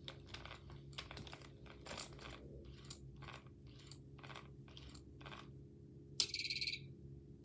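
Faint irregular clicks and crunches, a few a second, over a steady low hum. About six seconds in comes a short buzzy high-pitched chirp.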